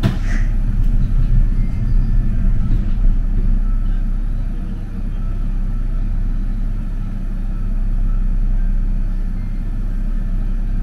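Mitsubishi Crystal Mover C810A rubber-tyred light-rail train running: a steady low rumble with a faint even hum, and a short sharp knock right at the start.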